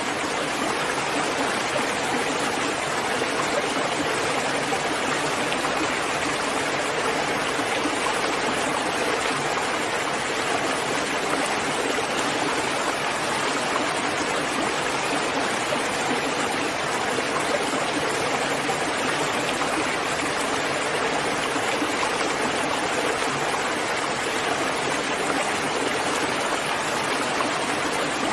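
Steady rainfall: an even, unbroken hiss of water that does not rise or fall.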